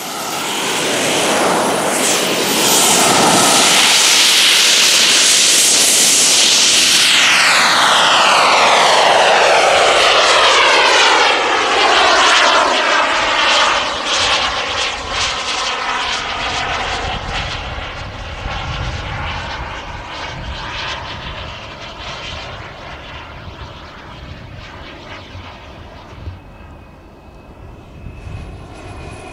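RC model jet's turbine engine running at full power on the take-off run, a loud jet rush with a high hiss that builds over the first seconds. From about twelve seconds in it turns into a sweeping whoosh as the jet flies past and away, fading.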